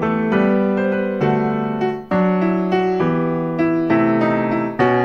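Background piano music: chords struck about once a second, each ringing and fading.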